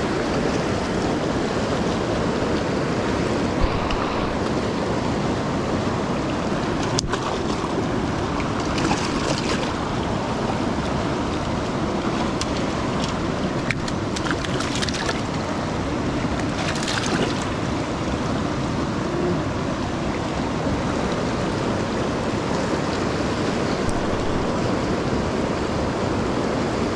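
Fast mountain river rushing steadily over boulders and through rapids, close by, with a few brief faint clicks now and then.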